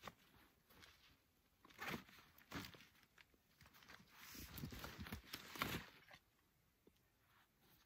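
Faint rustling and crunching as a backpack is handled on packed snow, coming in a few short spells with a longer one about halfway through.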